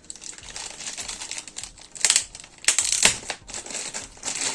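Packaging crinkling as it is opened to take out a new multimeter, with a few louder, sharper crackles about two to three seconds in.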